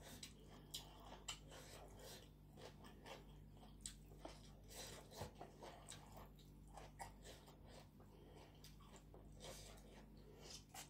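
Close-up chewing and mouth sounds of someone eating spicy papaya salad with chicken feet and rice noodles: quiet, irregular wet clicks and smacks, over a faint steady hum.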